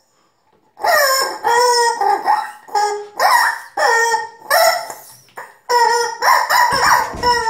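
Rubber chicken toy squeezed over and over, giving about ten loud squawks, several falling in pitch, starting about a second in. Music comes in near the end.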